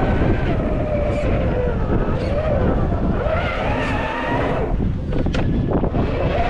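Traxxas TRX-4 1/10-scale RC crawler driving over rough ground: its electric motor and gearbox whine, rising and falling in pitch as the throttle changes, over a rough rumble of tyres on the terrain. A few sharp clicks come about five seconds in.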